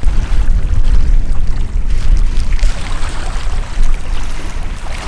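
Wind buffeting the microphone: a loud, uneven low rumble with a hiss of moving air above it.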